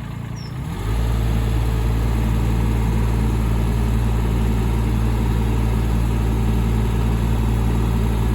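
Case CX18B mini excavator's diesel engine running; about a second in it steps up to a louder, higher engine speed and then runs steadily.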